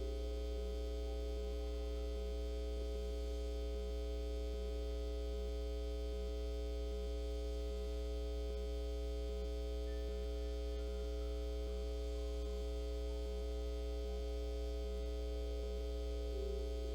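Steady electrical mains hum with several constant tones above it and a faint, regular pulsing.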